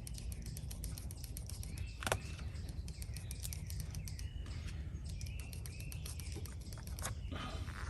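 Birds chirping outdoors in short arched calls that repeat every couple of seconds, over a steady low rumble. Scattered small clicks, with one sharper click about two seconds in.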